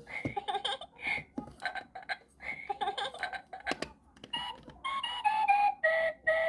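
Fisher-Price toy teapot talking in a recorded voice, then playing a short electronic jingle of quick notes that step down in pitch.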